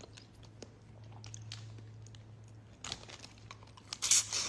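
Close-miked eating of seafood: wet chewing and lip-smacking clicks, with a louder noisy burst about four seconds in, over a steady low hum.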